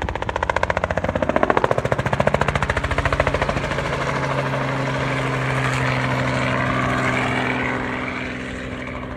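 Two-bladed crop-dusting helicopter flying low past, its rotor pulsing fast and loud for the first three seconds or so. Then comes a steadier engine drone as it moves away, fading near the end.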